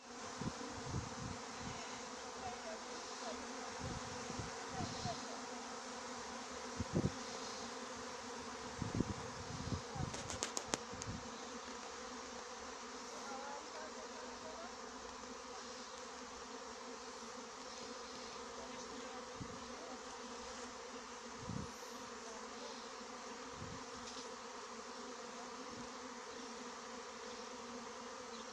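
A honeybee swarm clustered on a tree trunk, buzzing as a steady, many-voiced hum. A few low thumps sound through the first ten seconds or so, and once more later.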